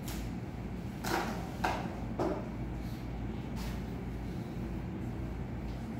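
Steady low hum of room noise. About a second in, three short sounds come about half a second apart.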